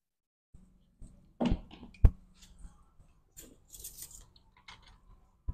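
Engine oil dipstick being pulled and pushed back into its tube to check the level: a few sharp clicks and knocks, the loudest about two seconds in, and a brief rustle in the middle.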